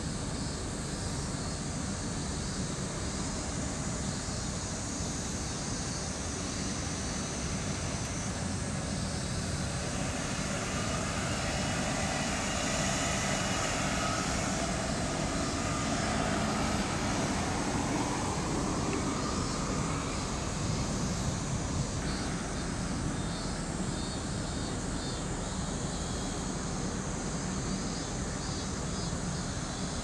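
Aircraft engine noise from a military air base, over a steady outdoor background hum. It swells through the middle, and a whine rises in pitch before cutting off about two-thirds of the way through.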